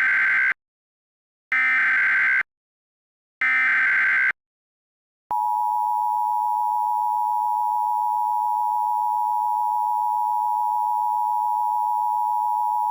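Emergency Alert System tones: the SAME digital header sent three times as short buzzy data bursts about a second apart, then the steady two-tone EAS attention signal held for about eight seconds. Together they mark the start of an emergency alert broadcast.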